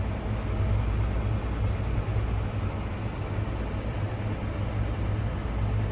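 Tractor engine running steadily under way, a constant low rumble heard from inside the cab.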